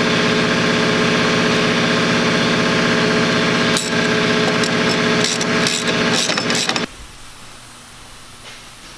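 A steady mechanical hum of a running motor, with sharp metallic clicks and clinks of tools on the strut mount from about four seconds in. The hum cuts off suddenly near seven seconds, leaving a much quieter background.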